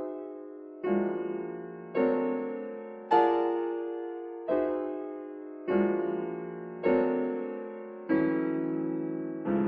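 Solo piano playing a slow series of chords, about one every second and a quarter: eight in all, each struck and left to ring and fade before the next.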